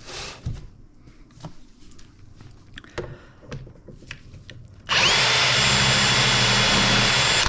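A few light clicks and knocks as a hinge-drilling jig is set against the edge of a wooden cabinet door. About five seconds in, a drill spins up and runs steadily at speed for about two and a half seconds, boring into the door through the jig's guide.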